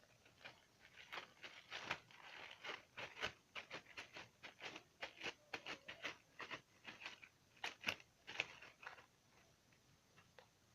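Faint wet clicks and pops of slime being squished and stretched by hand, a quick irregular run that dies away near the end.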